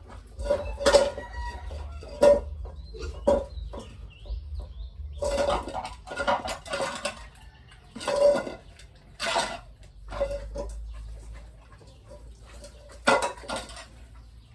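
Chickens clucking, a series of short separate calls with brief gaps between them, and a faint high chirp about three seconds in.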